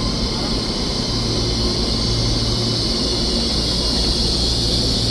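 Steady hum and high hiss of an EMU3000 electric multiple unit standing at the platform, its onboard equipment running.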